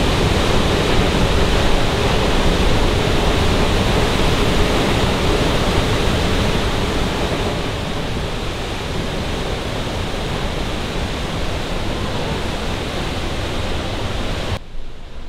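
Large waterfall in full flood, swollen by heavy overnight rain: a loud, steady rush of falling water and spray, which drops away suddenly near the end.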